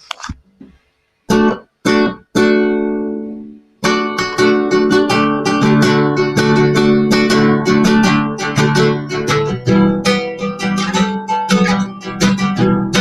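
Acoustic guitar: three single strummed chords, the last left to ring out, then steady rhythmic strumming starts about four seconds in as the intro to a song.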